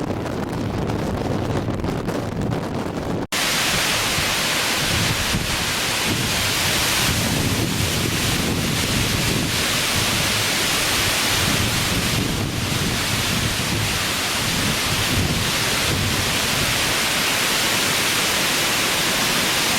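High wind buffeting the microphone with a low, gusty rumble. About three seconds in the sound cuts abruptly to a steady, full hiss of strong wind through trees, with the gusty rumble on the microphone carrying on beneath it.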